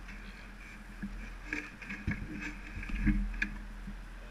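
Faint scattered knocks and clicks over a steady low rumble, from people handling the parked Formula SAE race car; the loudest knock comes about three seconds in.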